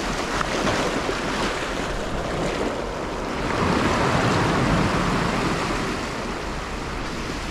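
Sea waves washing over a rocky ledge: a steady surf noise that swells for a couple of seconds about halfway through.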